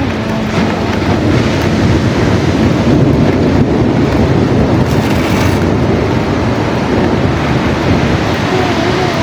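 Ocean surf: a steady, loud wash of breaking waves. Faint, soft music tones come in near the end.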